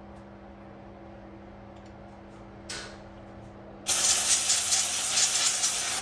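A pressurised jet hissing: a brief puff, then a loud, steady blast of about two seconds that cuts off sharply.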